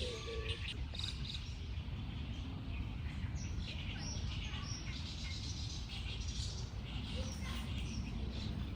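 Birds chirping in short high calls, most of them about three to five seconds in, over a steady low background rumble.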